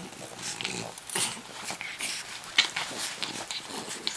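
French bulldogs play-fighting, snorting and grunting in short irregular bursts, with one sharp click about two and a half seconds in.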